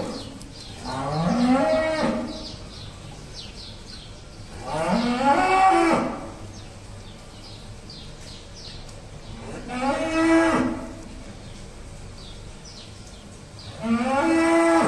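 Holstein cattle mooing: four long moos a few seconds apart, each starting low and rising in pitch before holding steady.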